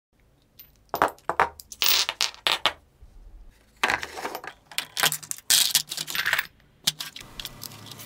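Zinc-plated steel pipe fittings, a bolt, nuts and a washer clinking and clattering as they are handled and dropped into a plastic tub: a string of sharp metallic clicks in several quick bursts.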